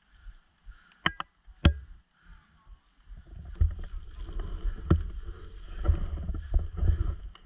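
Three sharp clicks about a second in, then about four seconds of rustling, crackling and dull thumps from a player moving through dry fallen leaves and undergrowth.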